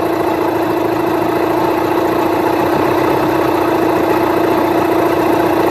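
Yamaha 15 hp outboard motor idling steadily while its idle mixture screw is turned in to tune the idle, the motor having been on the edge of dying.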